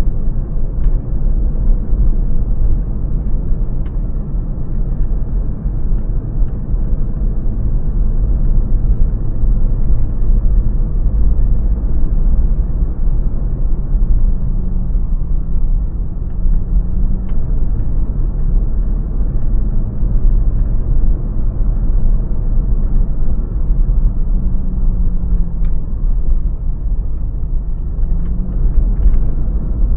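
A car driving on a road: a steady low rumble of road and engine noise, with the engine's note rising and falling a few times.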